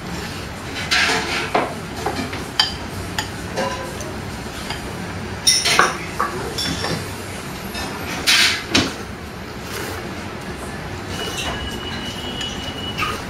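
Restaurant background with dishes clinking and several short noisy bursts, the loudest about five and a half and eight and a half seconds in; a faint steady high tone sounds near the end.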